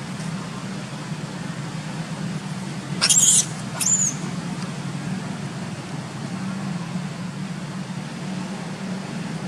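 Two short, high-pitched squeals from a young long-tailed macaque about three and four seconds in, the second falling in pitch, over a steady low hum.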